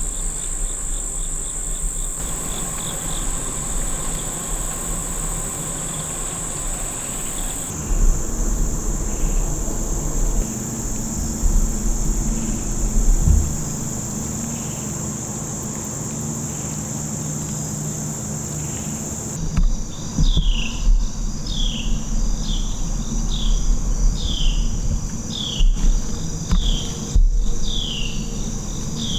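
Steady high-pitched trilling of crickets and other insects, over a low rumble. About two-thirds of the way in, a repeated falling chirp starts, about once a second.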